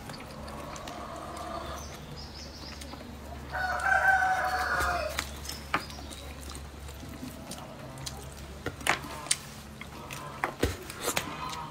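A rooster crowing twice: a fainter crow, then a louder, longer one about three and a half seconds in. Short clicks and smacks of eating follow.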